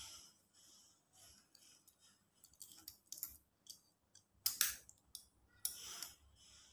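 Faint scattered clicks and rustles of hands handling nylon fishing line, with two louder, short rustling sounds in the second half.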